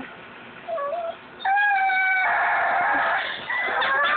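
A dog making drawn-out, high, wavering vocal calls: a short yelp about a second in, a long call of about two seconds, and another long call starting near the end.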